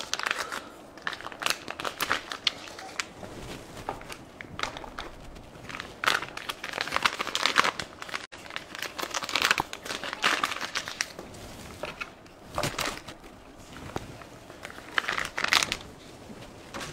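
Plastic wet cat-food packets crinkling and rustling as they are handled and emptied, in short bursts every second or two.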